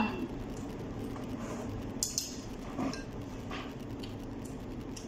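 Cutlery lightly clinking against plates and bowls a few times during a meal, over a steady low hum.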